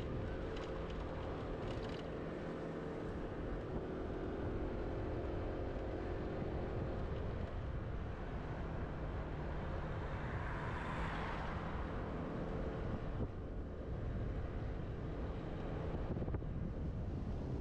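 Scooter running along a road: a steady motor hum over road and wind rumble. A louder rushing sound swells and fades about ten to twelve seconds in as an oncoming vehicle passes.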